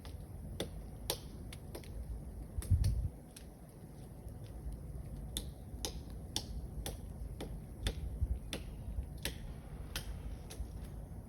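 A woodpecker pecking at a tree trunk: single sharp taps, about two a second and unevenly spaced, over a low rumble.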